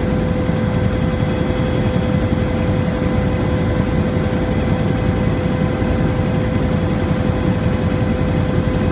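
Helicopter in steady cruise flight heard from inside the cabin: a dense low rotor and engine rumble with a constant whine above it, unchanging throughout.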